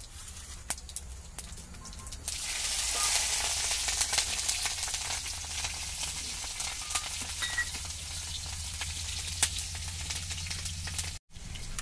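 Green chillies dropped into hot oil with cumin seeds in a wok, sizzling loudly from about two seconds in and slowly settling as they are stirred; a few crackling clicks come before.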